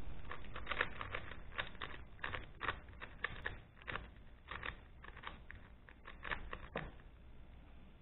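A Rubik's Speedcube (a 3x3 speedcube made by Rubik's with GAN) being turned by hand as it is scrambled: a quick, irregular run of sharp plastic clacks, the loud, blocky turning of this cube. The turning stops about a second before the end.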